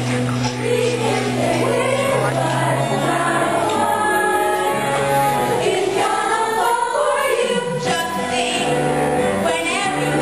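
Stage-musical cast singing a show tune together with instrumental accompaniment.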